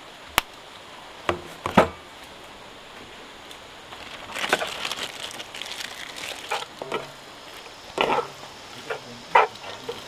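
Irregular sharp knocks and clatter of camp cooking or wood being handled, with a denser run of clattering about halfway through, over a steady background hiss.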